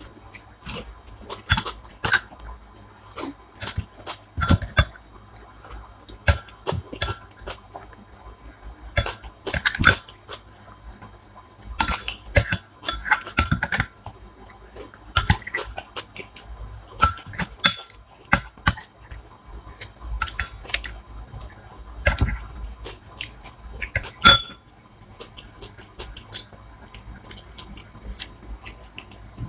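A person eating close to the microphone: chewing and crunching, with sharp mouth clicks and smacks coming at irregular moments, several a second at times.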